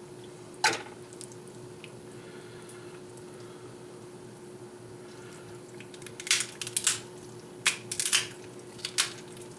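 Handling sounds at a kitchen cutting board: raw chicken pieces, plates and utensils knocking and clattering, one knock about a second in and a busier run of short knocks and clatter from about six seconds in, over a steady low hum.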